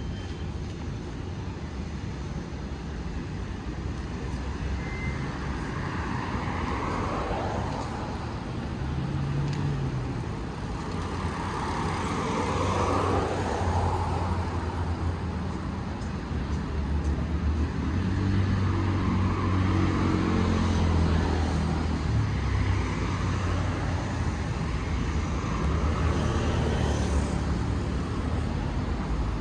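Road traffic on a city avenue: cars passing in waves, swelling louder several times, with a heavier engine rumble in the latter half.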